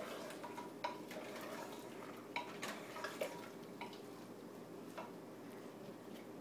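A metal spoon clinking and scraping against a cooking pot while stirring: about seven scattered sharp clinks over a faint steady background noise.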